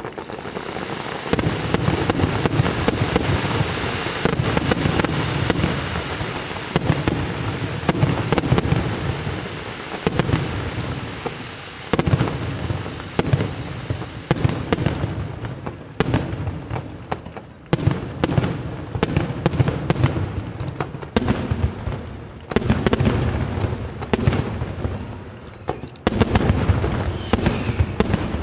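Fireworks display: a dense barrage of shell bursts and continuous crackling, thinning after about halfway into separate sharp bangs and short clusters of reports.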